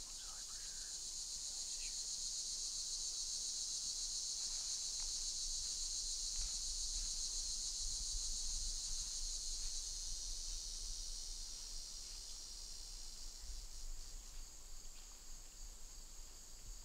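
A steady, high-pitched chorus of insects in the woods. It swells toward the middle and eases a little near the end.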